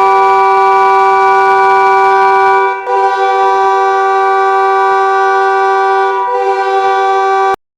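NHL arena goal horn, an air horn sounding a steady chord of several notes in long blasts, with brief breaks about three and six seconds in. It cuts off abruptly near the end.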